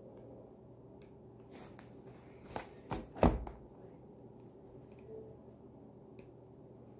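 Light taps of a stylus on a tablet, with a quick cluster of three or four sharp knocks about halfway through, the last the loudest and carrying a dull thump.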